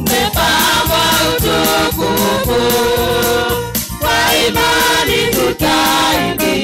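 Church choir singing a gospel song into microphones, several voices together over a steady beat.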